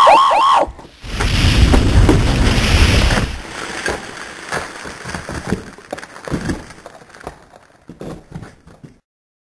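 A person shouts three quick rising-and-falling whoops. A loud low rumble of noise on the camera microphone follows for about two seconds, then quieter scattered knocks and rustle that cut off abruptly near the end.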